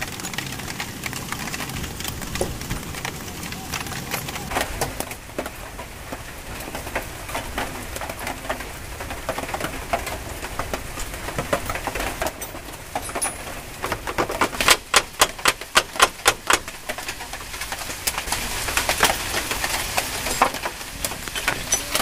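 Metal clicks and clinks of a spanner working the caliper mounting bolts on a Bajaj Pulsar's front disc brake as the caliper is unbolted. About two-thirds of the way through comes a quick run of about ten clicks.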